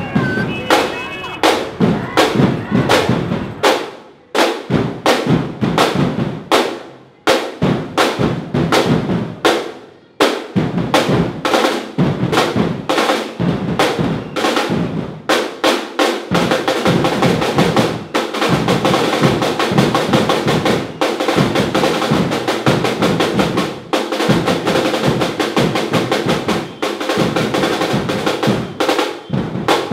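A protest noise barrage: many people drumming and banging rapidly and irregularly. It grows into a denser, steadier din about halfway through.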